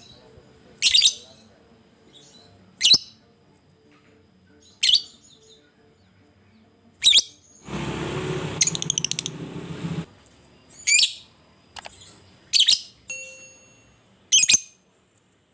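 A lovebird gives short, shrill calls about every two seconds. About eight seconds in comes a harsh, rapid chatter lasting about two seconds.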